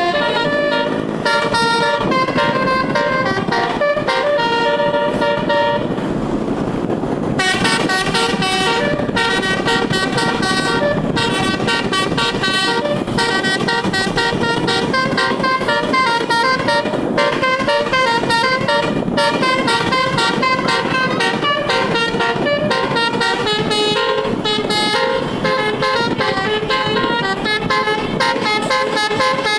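Bus telolet horn, a multi-tone musical air horn, sounded at length with all its tones switched on, playing a quick tune of changing notes stacked on one another. The notes briefly drop out about six seconds in, then resume.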